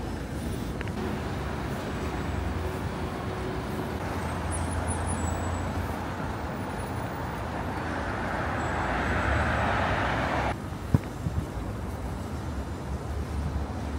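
City road traffic: a steady low rumble of passing vehicles. A louder hiss swells from about halfway and stops abruptly about ten seconds in, followed by a single sharp knock.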